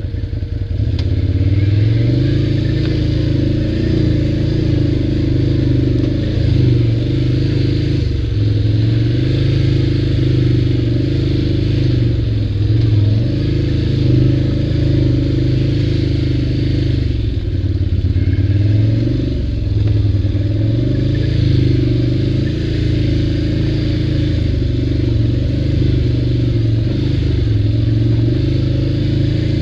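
ATV engine running steadily while riding, its pitch rising and falling every few seconds with the throttle.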